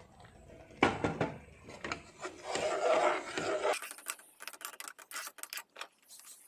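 Kitchen utensil working in a metal cooking pot: scraping and clattering, busiest through the middle, then switching abruptly about four seconds in to light scattered clicks and taps.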